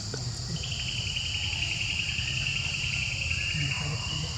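Insects trilling: a steady high chorus throughout, and a pulsing trill that starts about half a second in and runs almost to the end, over a low rumble.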